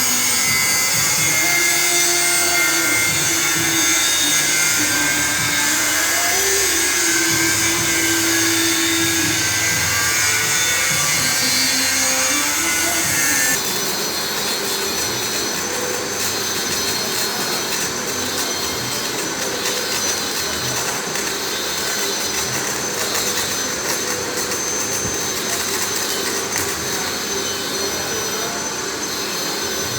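Workshop machinery running steadily, a loud whirring with thin high whines over it, changing abruptly about halfway through.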